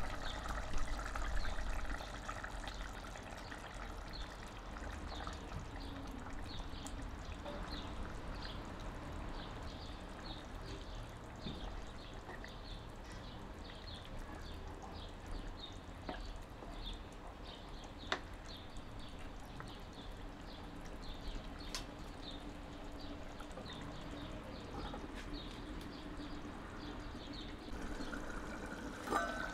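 Thick fish curry gravy simmering in a clay pot, small bubbles popping steadily, with splashes of fish pieces dropping into the gravy in the first couple of seconds and a short knock near the end.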